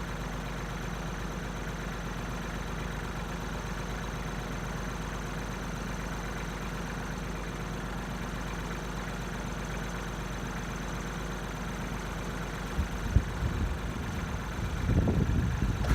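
An engine idling steadily with an even hum. A few sharp knocks come about 13 seconds in, and louder clattering builds near the end.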